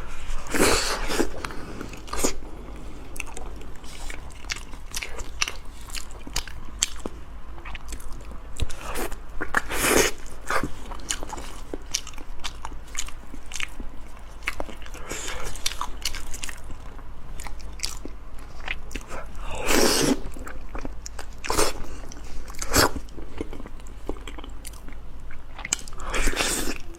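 Close-miked eating: a person biting and chewing food, with many small mouth clicks and a handful of louder bites spaced several seconds apart.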